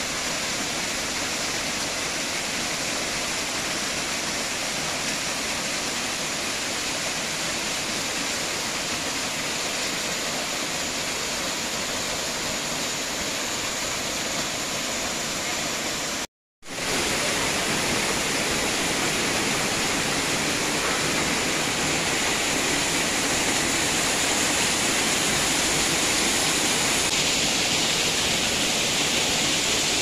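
Steady, even rush of a small waterfall cascading over rocks into a pool. It breaks off for a moment about halfway through, then carries on slightly louder.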